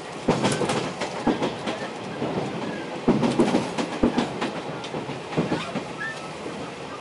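Taiwan Railways Chu-Kuang express train running, with irregular clattering and heavy knocks from the carriage running gear, loudest about a quarter second in and again around three to four seconds in, over a steady rumble.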